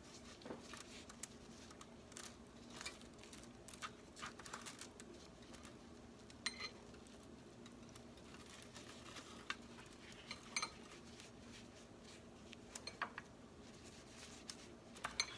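Faint scattered taps and light crinkles of bread slices being handled on a foil-lined baking tray with gloved hands, over a faint steady hum.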